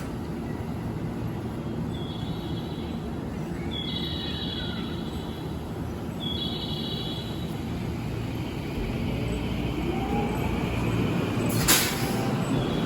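Electric commuter train at a station platform: a steady low rumble with a faint motor whine gliding down and, later, another rising. A short sharp burst of air about three-quarters of the way through.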